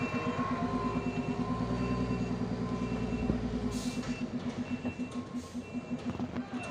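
Diesel engine of a Hino container truck running steadily at low revs, with its reversing alarm beeping a little more than once a second. A short hiss comes about halfway through.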